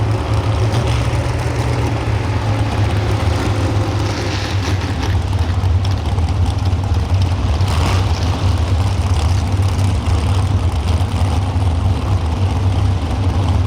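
Pro stock 4x4 pulling truck's engine idling with a steady, loud low rumble, not revving.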